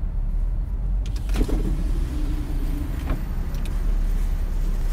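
Car's electric power window motor humming steadily for about two seconds as the driver's window is lowered, over the low steady rumble of the idling vehicle.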